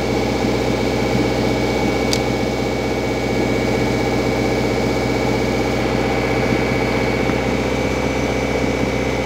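Steady engine hum running evenly throughout, with one sharp click about two seconds in.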